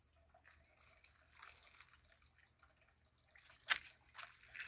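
Faint scattered small ticks and drip-like clicks, with one sharper click about three and a half seconds in.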